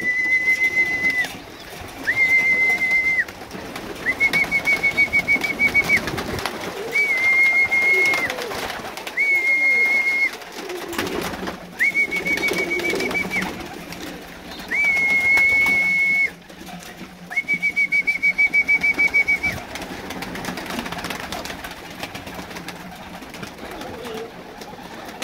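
A high, steady whistle repeated eight times, each note one to two seconds long and three of them fluttering, the last ending a few seconds before the end. Domestic pigeons coo low underneath.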